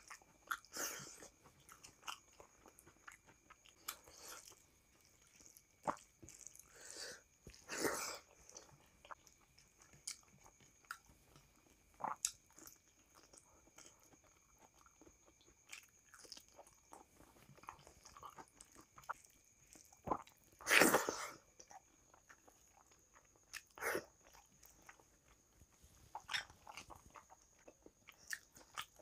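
Close-up eating sounds of rice, dal and fried fish eaten by hand: chewing, lip smacks and fingers working rice on the plate, with a few short louder bites, the loudest about eight and twenty-one seconds in.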